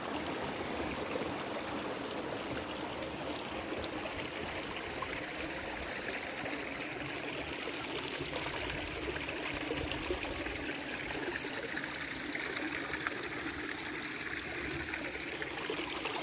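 Mountain stream trickling and splashing over rocks between small pools, a steady rushing sound.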